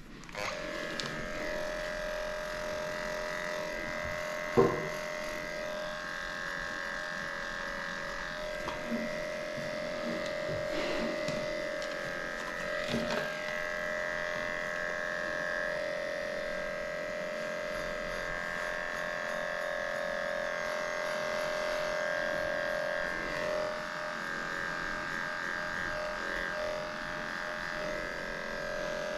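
Electric dog-grooming clippers running with a steady hum, shaving a matted coat. A sharp knock comes about four and a half seconds in, and a smaller one later.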